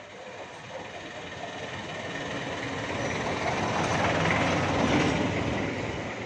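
A passing vehicle: a rumbling noise that grows louder, peaks about four to five seconds in, then fades away.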